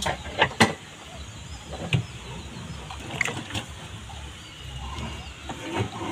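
Scattered sharp clicks, knocks and rustles of a nylon gill net being handled and a fish worked free of its mesh in a wooden dugout canoe, over a steady low rumble.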